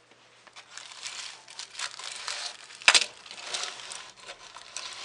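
Rustling and rubbing handling noise on the recording device, with one sharp click about three seconds in.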